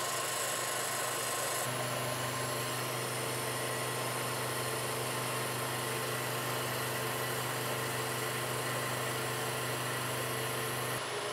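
Milling machine running, its cutter taking a pass along a metal bar: a steady machine hum with several held tones. The hum steps up about two seconds in and eases just before the end.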